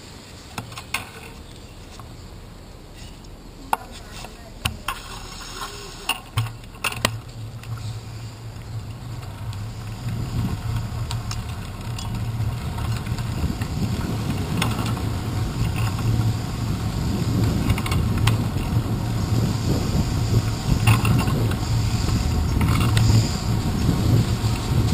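Bicycle riding noise picked up by a handlebar-mounted GoPro Hero 2: a few sharp rattles and knocks from the bike and mount in the first several seconds, then a low, steady road and wind rumble that grows louder as the bike gathers speed.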